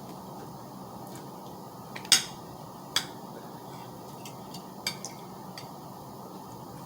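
Cutlery clinking against a plate: a few separate sharp taps, the loudest about two seconds in with a short ring, others about three and five seconds in.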